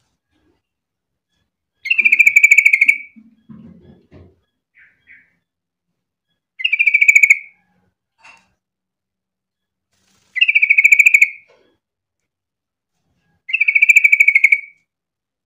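Yellow-vented bulbul (trucukan) song: four short, rapid phrases, each about a second long, repeated every few seconds.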